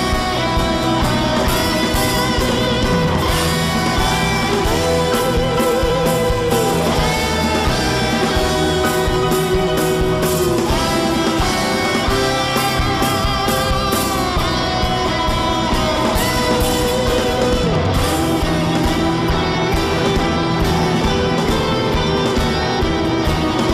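Background rock music led by guitar, with a steady beat and long held notes that waver in pitch.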